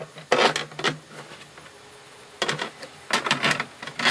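Handling noise: irregular rustles and clicks in four short clusters, as a hand and the camera move around a plastic reservoir tank.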